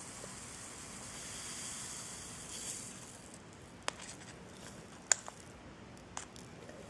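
Black activated-carbon granules pouring out of a cut-open plastic water-filter cartridge into a plastic cup: a soft, steady hiss that stops about three seconds in, followed by a few sharp plastic clicks as the emptied cartridge is handled over the cup.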